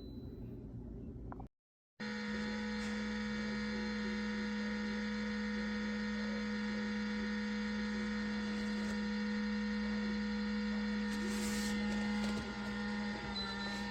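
Steady electrical hum, a strong low tone with many higher steady tones above it, starting after a short cut to silence about two seconds in. There is a brief hiss near the end.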